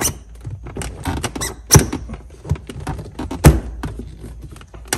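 BMW E46 M3 SMG shift knob being pressed down and worked onto the shifter: squeaks and rapid small clicks of plastic trim, with two loud knocks, about two seconds and three and a half seconds in.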